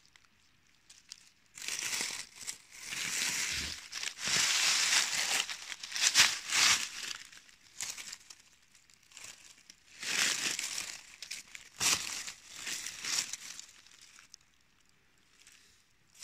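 Dry fallen leaves crackling and rustling as a hand pushes through the leaf litter around a porcini mushroom, in two long irregular spells with quiet gaps between.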